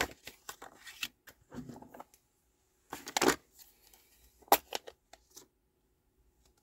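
Cardstock and a new plastic Stampin' Pad ink pad case handled on a tabletop: scattered light taps and clicks, a short rustle about three seconds in, and a sharp click about halfway through as the stiff new case is prised open.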